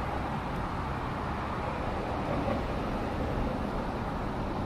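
Steady outdoor background noise of distant traffic, a low, even rumble.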